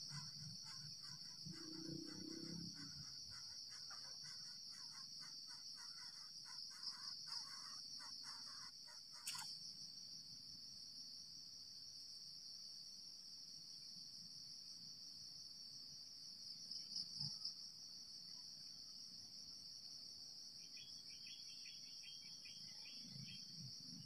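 Faint, steady, high-pitched drone of insects. For the first nine seconds a rapid series of short ticks runs over it and ends in one sharp click, and another short run of quicker ticks comes near the end.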